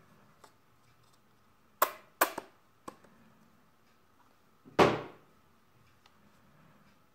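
Handling knocks of a plastic rear-view mirror dashcam against its cardboard box: a few sharp clacks about two seconds in, then one louder knock near five seconds.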